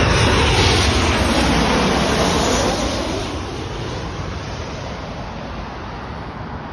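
Boeing 737 jet airliner passing low overhead on landing approach: a loud rush of jet engine noise whose pitch falls as it goes by. It fades after about three seconds to a lower, steady roar as the plane moves away.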